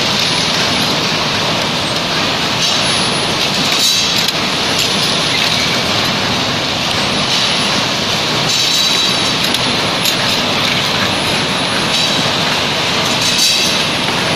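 Automatic sealing machine for cylindrical canisters running: a loud, steady mechanical rattle of rollers and drive, with a brief higher-pitched burst about every four to five seconds as each sealing cycle works.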